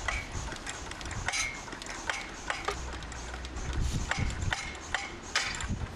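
About a dozen irregular sharp metallic clicks and clinks, some with a brief ringing, from a pneumatic telescopic mast being pumped up, its aluminium sections sliding up through the locking collars.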